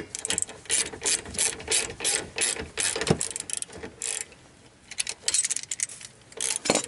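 Socket ratchet clicking in quick repeated strokes, about three or four a second, as it is swung back and forth to tighten a rear brake caliper slide pin bolt with a 15 mm socket. The clicking pauses briefly a little past the middle, then resumes.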